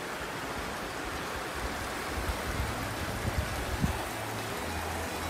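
A rocky mountain creek rushing over rapids in a steady wash of water noise. Some low rumble with a few thumps comes in from about two seconds in.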